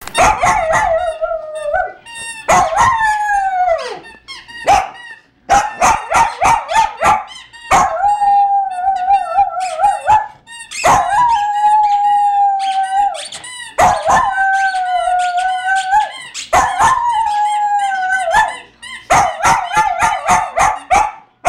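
A poodle howling like a wolf in about six long, drawn-out notes of a second and a half to two seconds each, set off by a squeaky toy dragon that is squeaked in quick runs between and over the howls.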